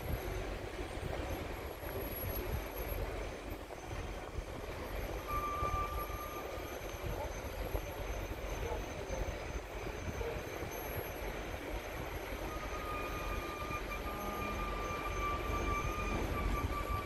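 Passenger coaches rolling past on the rails, a steady rumble and clatter of wheels on track. A thin high-pitched squeal rings out briefly about five seconds in, then again, longer, through the second half.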